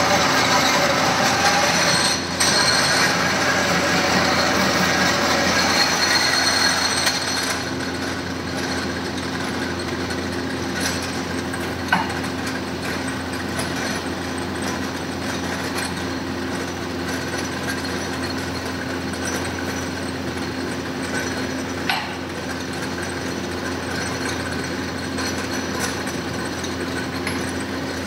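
Pillar drill press drilling into a metal part for about the first seven seconds, then its motor and spindle running on steadily with no load. A few single sharp metal clicks come through.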